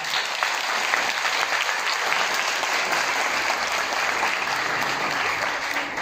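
Audience in a hall clapping steadily, applause for a speech that has just ended, dying away at the very end.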